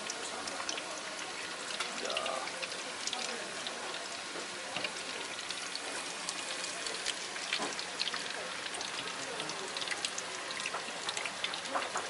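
Battered shrimp deep-frying in a pot of hot oil: a steady sizzle with dense crackling and popping.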